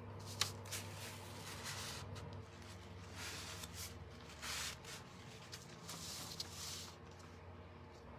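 Paper towel and a small hand tool rubbing and scraping over a wooden cutout: several short, scratchy strokes, with a sharp tick about half a second in.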